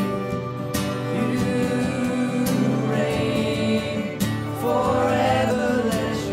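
Christian worship song: several voices singing together, men and women, over strummed acoustic guitar and keyboard, with violin and saxophone in the band.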